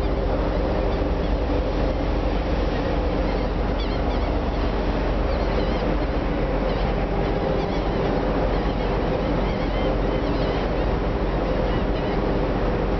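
Steady drone of a tanker under way: the ship's engine and machinery humming under wind on the microphone and water rushing past the hull. Faint high cries of gulls come now and then in the middle of the sound.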